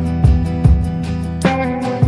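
Background music: strummed guitar over a steady bass, with a regular beat.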